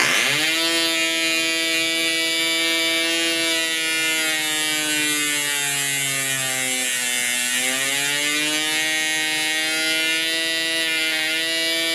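Progress Aero Works .55 model diesel engine catching and running at high revs with its propeller. About halfway through its pitch sinks slowly as the compression screw is turned in and the engine labours, overcompressed, then climbs back up to a steady high run as the compression is backed off to the optimum setting.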